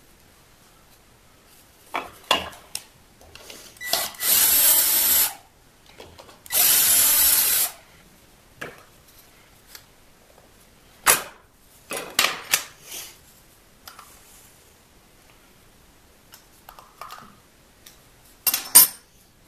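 A cordless drill-driver runs in two bursts of about a second each, backing out the two screws that clamp a wooden jig. After them come a few sharp clicks and knocks of parts handled on a metal bench top, the loudest near the end.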